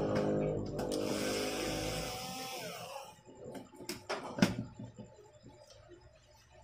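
A small electric motor's steady whine fades out over the first two to three seconds. Then come light plastic clicks and knocks as cable connectors are unplugged from the TV's power supply board, the sharpest knock about four and a half seconds in.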